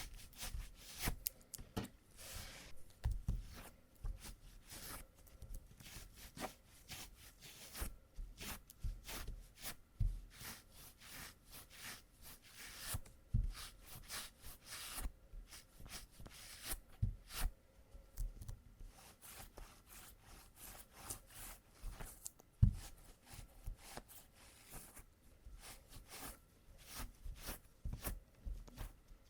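Sticky tape (lint-roller or tape-cleaner sheet) pressed onto fabric trousers and peeled off to lift embedded cat hair, making irregular sharp crackles and short rips, with one louder snap about three-quarters of the way through.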